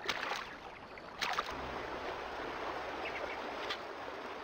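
Water splashing and sloshing as a crocodile moves its head in the river, with a sharper splash about a second in, then a steady even background noise.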